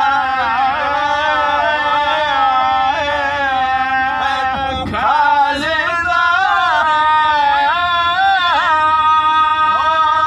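A man's voice chanting a melodic, ornamented religious recitation in the style of a zakir's Shia mourning (Azadari) majlis, with wavering melismatic lines and long held notes. The longest held note comes near the end.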